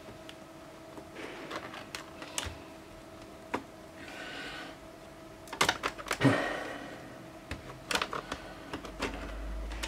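Light clicks and taps of a replacement laptop LCD panel being handled and seated into its brackets in an HP Pavilion G7 laptop's screen lid, with a brief rustle about four seconds in.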